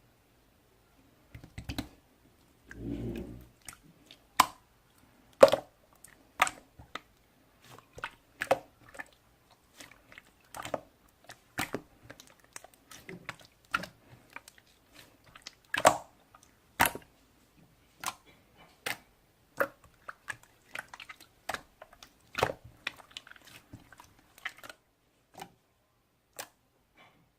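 Clear slime being pressed and pulled by hand, giving sharp sticky pops and clicks at an irregular pace, with one longer, duller squelch about three seconds in.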